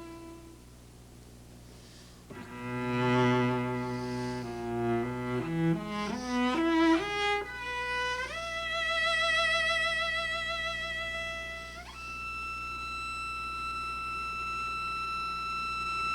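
Solo cello playing a passage. A previous note fades away at the start, then a low note sounds, followed by a quick rising run of notes and a leap to a higher note played with vibrato. The passage ends on a long, high note held steady without vibrato.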